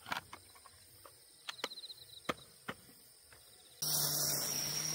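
Faint pulsing trills of crickets or similar insects, with a few sharp clicks. Near the end, a loud steady hiss with a low hum starts abruptly and keeps going.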